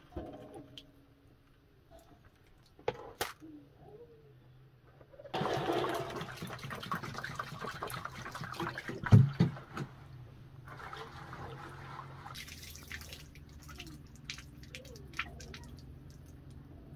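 Water poured from a plastic jerrycan into a plastic basin of rice, splashing from about five seconds in, with one loud thump partway through; then a steady trickle as the rice-washing water is drained out of the tipped basin.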